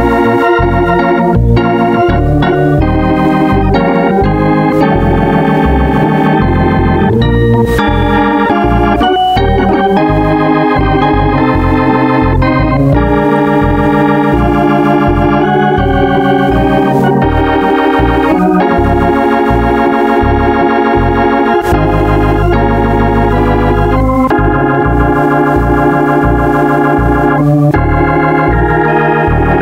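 Organ music playing: held chords changing every second or two over a pulsing bass line.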